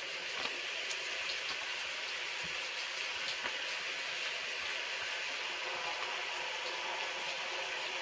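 Steady rain falling, an even hiss, with a few faint clicks of a DVD booklet being handled.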